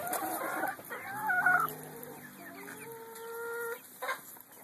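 Domestic chickens clucking and calling, with one long drawn-out call held for over a second that ends near the end.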